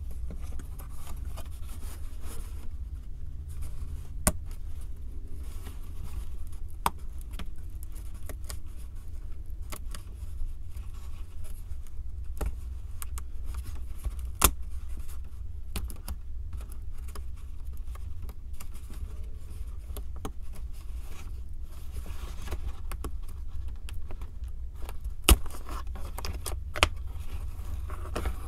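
Small 3D puzzle pieces being handled and fitted together: light scraping and rustling broken by scattered sharp clicks as pieces knock against each other or are set down, the loudest about 25 seconds in. A steady low rumble underlies it.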